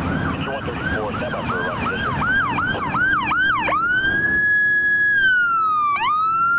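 Ambulance electronic siren yelping, about three quick rising-and-falling sweeps a second that speed up. A little over halfway in it switches to a slow wail that climbs, sags gradually, dips sharply and climbs again.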